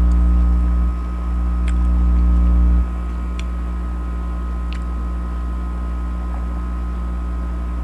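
A steady low electrical hum with a faint high whine above it. It drops in level a little about three seconds in, with a few faint clicks.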